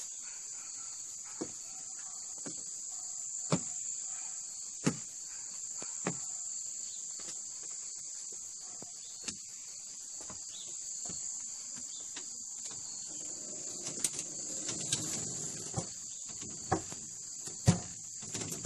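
Steady high-pitched chorus of insects in a summer yard, with scattered soft clicks throughout. Near the end a knuckle knocks on a wooden house door a few times; these knocks are the loudest sounds.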